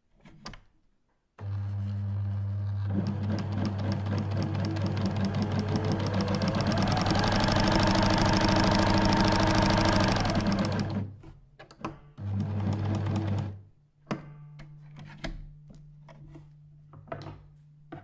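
A sewing machine stitching at speed: a motor hum under a rapid, even clatter of the needle, its pitch rising and then holding steady. It stops about eleven seconds in, runs again briefly, then gives way to a quieter steady hum with scattered clicks.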